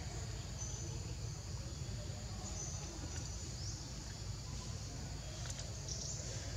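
Outdoor ambience: steady high-pitched insect buzzing with a few brief high chirps, over a constant low rumble of wind.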